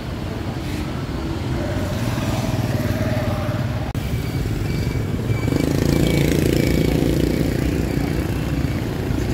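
Street traffic dominated by motorbike engines running steadily, growing louder about halfway through.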